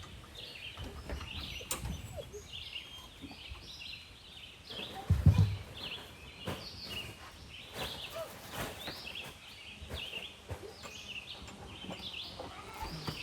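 Birds calling, many short chirping calls in quick succession, with a single low thump about five seconds in.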